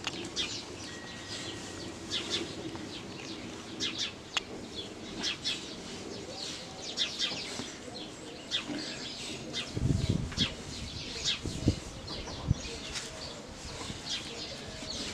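Rustling and scraping of a heavy diving suit being handled and pulled up over the legs, as many short crackles. From about ten seconds in, low rumbles and thumps join in.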